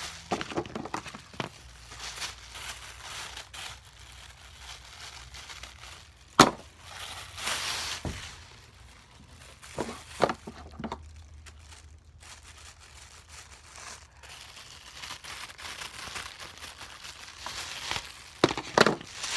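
Plastic bag pieces crinkling and rustling as they are handled and stuffed into a folded paper pouch, with a few sharp clicks along the way.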